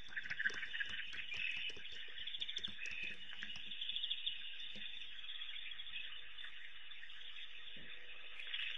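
A steady chorus of frogs and insects, a continuous high trilling with short chirps and scattered clicks over it.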